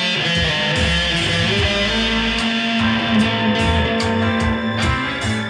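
Electric guitar played through an amplifier, with long held notes.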